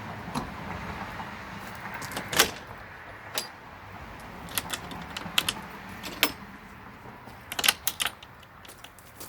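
Scattered sharp metallic clicks and clinks, single and in small clusters, over a steady low hiss.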